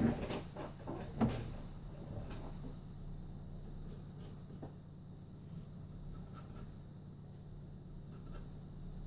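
Two knocks in the first second and a half, then a graphite pencil lightly sketching on a sheet of paper over a low steady hum.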